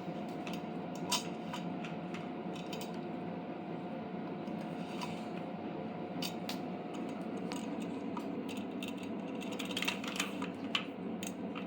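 Small metal hardware clicking and clinking in the hands during machine assembly, a dozen or so scattered light clicks, more of them near the end, over a steady low background hum.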